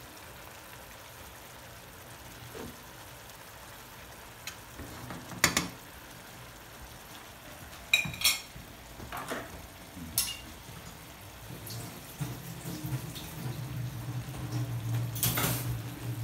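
Cod fillets simmering in a pan of tomato broth: a steady low bubbling sizzle, broken by a few sharp clicks and knocks. A low hum comes in about twelve seconds in.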